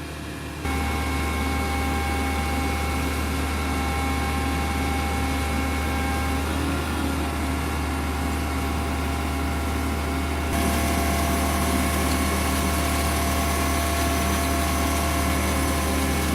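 Concrete pump truck running steadily: a low engine hum with several steady whining tones above it. It steps up abruptly in loudness about a second in and again about ten seconds in.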